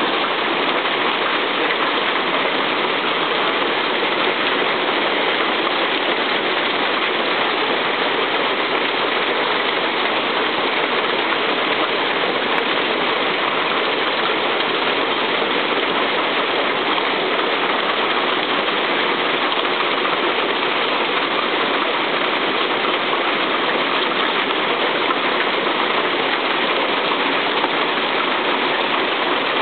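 Heavy hailstorm: a dense, steady rush of hailstones striking the ground, trees and roofs, with no let-up.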